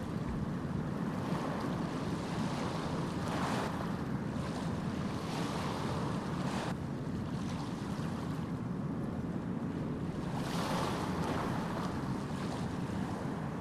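Steady rushing of wind and water, with three brief louder surges about a third of the way in, past the middle and near the end.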